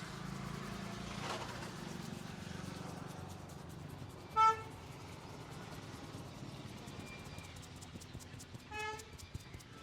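Two short vehicle horn toots about four seconds apart, the first louder, over a steady low rumble of street traffic.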